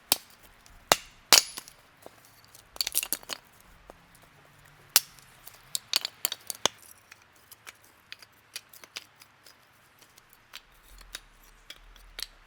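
Irregular sharp snaps and knocks of dry wood being broken and handled for a campfire, with quick clusters of snaps about three seconds in and again around six seconds, then fainter, sparser clicks.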